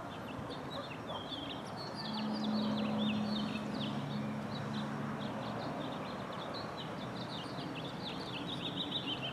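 Small birds chirping, many short quick calls one after another over steady outdoor background noise. A low steady hum comes in about two seconds in and fades out a few seconds later.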